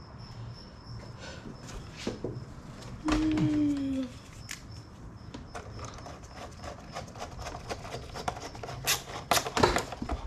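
Hand tool tightening the hose clamp on an engine's air intake tube: scattered clicks and light knocks, with a short squeak that falls slightly in pitch about three seconds in and a cluster of sharper clicks near the end.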